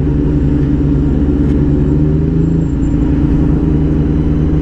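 Motorcycle engine, the CFMoto 450SR's parallel twin, running at steady revs while riding, under a haze of road and wind noise.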